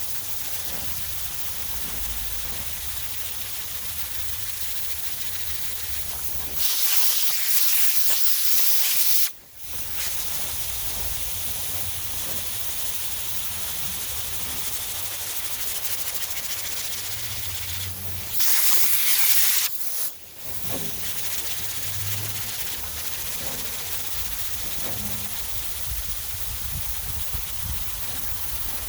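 Steady scraping hiss of 220-grit sandpaper on a large sanding block worked over a primed car hood. It is interrupted twice by a loud blast of compressed air, about two and a half seconds and then about a second long, blowing the primer dust off so the paper doesn't clog.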